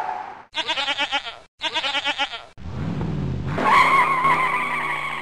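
Cartoon sound effects: a goat bleats in two quavering calls, a vehicle engine revs briefly, then tyres squeal for about two seconds to the end.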